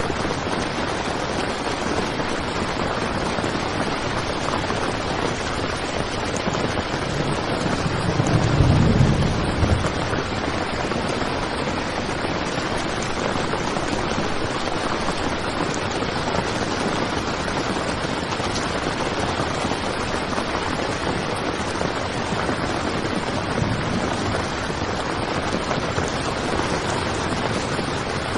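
Heavy rain falling steadily on a tent, a dense even hiss, with a brief low rumble swelling about eight seconds in.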